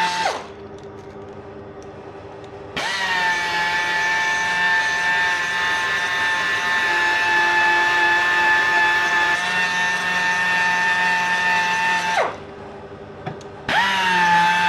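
Small pneumatic polisher running with a steady high whine against a motorcycle engine case. It winds down and stops just after the start, spins up again about three seconds in, then stops once more and spins up again near the end.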